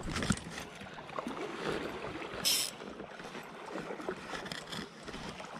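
Shallow creek water sloshing and lapping around a wading angler, with small clicks and one short, sharp hiss about two and a half seconds in.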